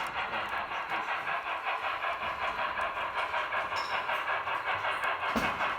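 HO-scale model train running on its track, a steady rhythmic sound pulsing about five or six times a second, with one sharp click near the end.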